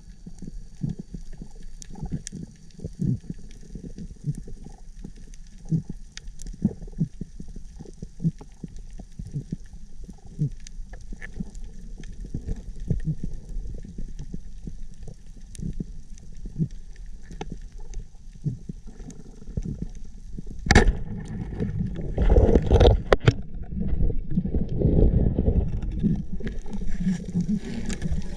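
Underwater coral-reef sound heard through a camera housing: a steady crackle of small clicks, typical of snapping shrimp, over a low rumble. About three quarters through comes a sharp crack, then louder rushing, bubbling noise in bursts.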